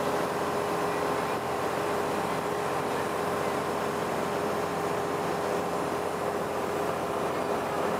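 River cruise boat's engine running steadily, a constant hum with a steady tone over a wash of water and wind noise.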